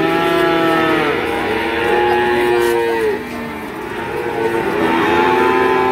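Calves mooing: three long drawn-out calls, one at the start, one from about one to three seconds in, and one near the end, each dropping in pitch as it ends.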